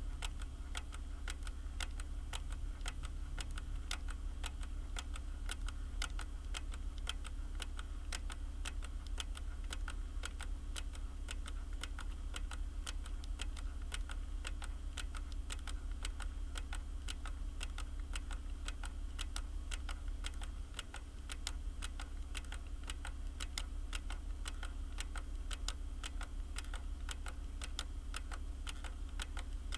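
Computer keyboard typing, keystrokes clicking in a quick, steady run. A steady low hum sits underneath.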